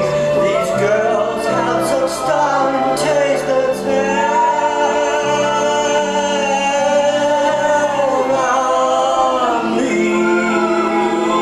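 Show-tune music from an audio-animatronic stage show: a vocal group sings held harmonies over a stepping bass line, with light percussion ticks during the first few seconds.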